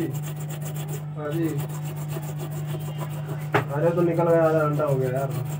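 Steady low hum, with a voice in the background twice and a sharp click about halfway through.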